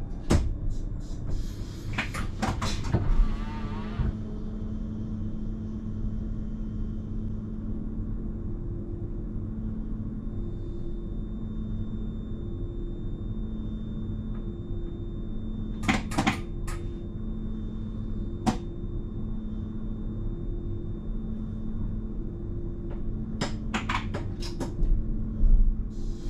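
Cab of a stationary electric train: a steady low hum from its running equipment, with a low tone that comes and goes about once a second. Sharp clicks and clunks break in, with a short hiss among them near the start, again around the middle, and in a cluster near the end.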